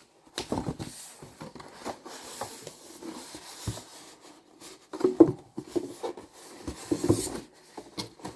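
Statue's cardboard box and packing being handled and pulled at: irregular scraping, rustling and knocks, busiest about five and seven seconds in.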